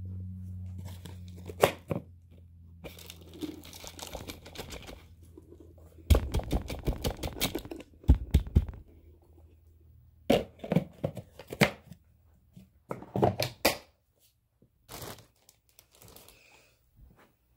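Bagless upright vacuum's dust cup emptied: a packed wad of dog fur and small plastic beads comes out with dense crackling and crunching for a few seconds, followed by shorter bursts of crackling. A low steady hum fades out about six seconds in.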